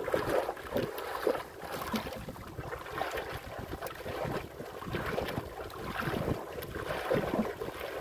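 Wind buffeting the microphone and choppy sea waves splashing against the hull of a small wooden boat, in uneven gusts and slaps.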